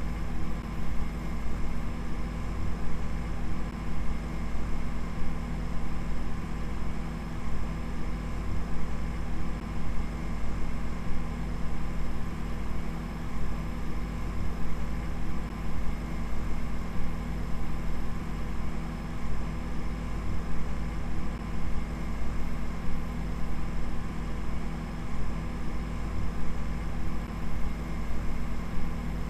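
A steady, low, machine-like hum with several held tones over a deep rumble, fluttering quickly and unevenly in loudness without ever stopping.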